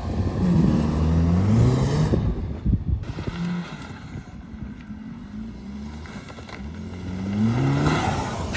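A vehicle engine revving up, its pitch climbing for about two seconds, then running lower and steady before climbing again near the end.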